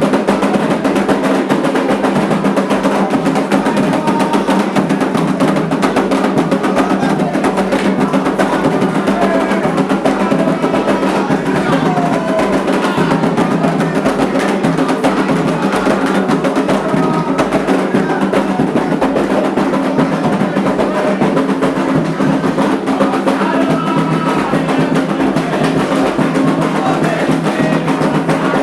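Candomblé ceremonial drumming on atabaque hand drums, dense and continuous without a break.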